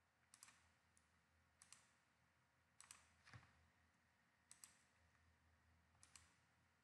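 Faint computer mouse clicks, about six, spaced a second or so apart, each a quick press-and-release double tick.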